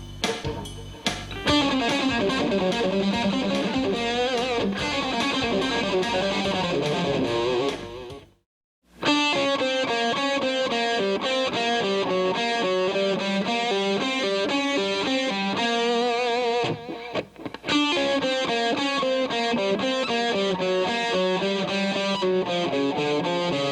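Distorted electric guitar playing fast single-note scale-sequence phrases built on a G Dorian and blues scale mix, stopping completely for a moment about eight seconds in and pausing briefly again around seventeen seconds.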